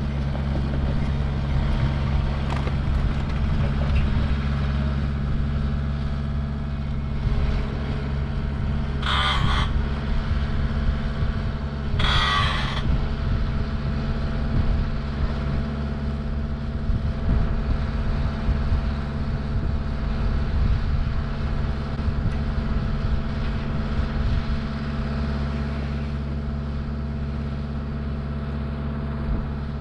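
Engine of the machine carrying a truss boom attachment, running steadily while the boom is raised. Two short hisses come about nine and twelve seconds in.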